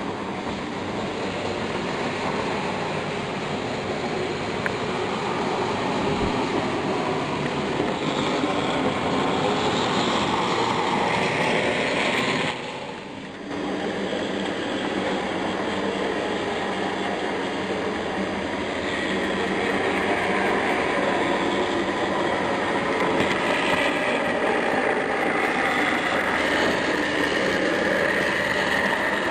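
Model trains running along a layout's track, making a steady running noise that drops away briefly about halfway through.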